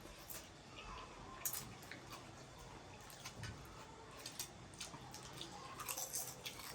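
Faint eating sounds: chewing with wet mouth noises and scattered small clicks of utensils, from people eating noodles and egg, with a sharper click about a second and a half in.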